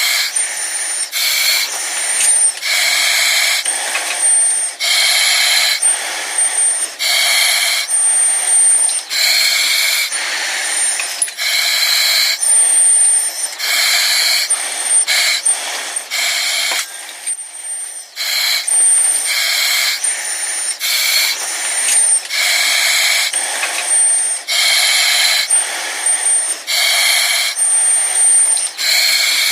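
Breathing through an oxygen mask: hissing rushes of air about once a second, in a steady cycle. A brief thin high tone sounds in many of the gaps between breaths.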